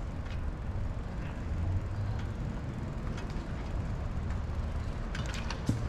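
Low, steady rumble of wind and road noise from riding an electric bicycle along a street, with a few light clicks and rattles near the end.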